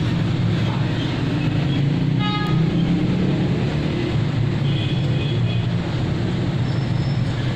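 Steady low rumble of road traffic, with a short vehicle horn toot a little over two seconds in.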